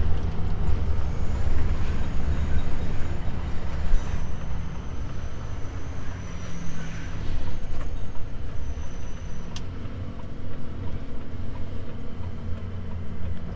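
Volvo FH truck's diesel engine running at low speed, a steady low drone heard with the cab window open, with a faint thin high tone in the middle and a single click near the end.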